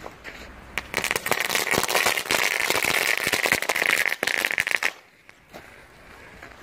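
Homemade charge of gunpowder crumbled from firecrackers and fountain fireworks flaring up: a loud fizzing, crackling burn that starts about a second in, lasts about four seconds and cuts off suddenly.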